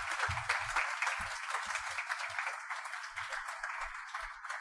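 Audience applauding at the end of a lecture: many hands clapping in a dense, even patter that slowly dies down toward the end.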